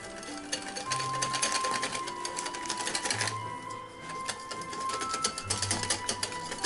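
Wire whisk beating a runny egg, milk and flour batter in a glass bowl, a fast run of clicks and taps as the wires strike the glass, with background music.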